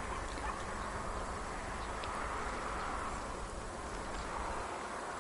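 Steady, faint outdoor background noise with a low buzzing hum and a few faint ticks.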